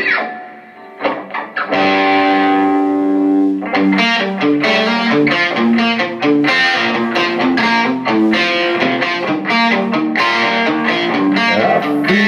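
Electric guitar played through effects. A held chord rings out and fades, a fresh chord is struck about two seconds in, and from about four seconds a quick picked line of single notes follows.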